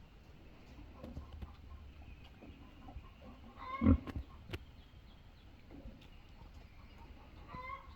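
A pig grunting, with one loud grunt about four seconds in and a shorter call near the end.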